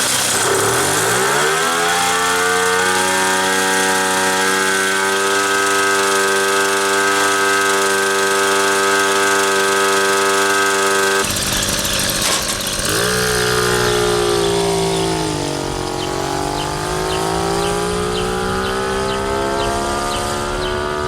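Motobecane moped's single-cylinder two-stroke engine revving up and holding a steady high-pitched run, now running cleanly with its Gurtner carburettor's choke and idle settings put right. About eleven seconds in, a low rumble of wind noise joins, and the engine pitch dips and then climbs again, as when riding.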